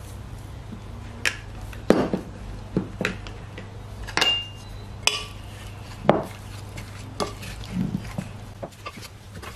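Wooden spoon knocking and clinking against a glass mixing bowl while stirring seasoning into raw chicken wings: irregular scattered strikes, one about four seconds in with a brief glassy ring, over a steady low hum.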